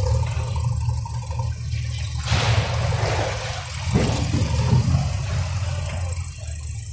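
Diesel engines of backhoe loaders running, a steady low rumble, with a brief rushing noise a little over two seconds in.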